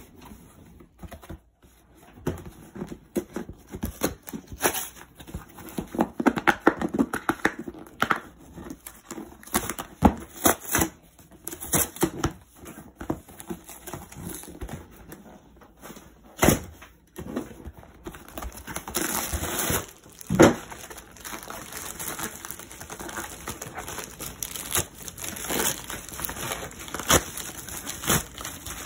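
A cardboard express envelope being torn open by hand along its tear strip: irregular tearing, crinkling and handling clicks. Toward the end a padded mailer rustles as it is pulled out.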